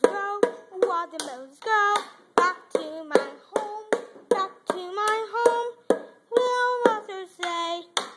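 A high voice singing a children's song, kept in time by sharp hand beats about two and a half times a second.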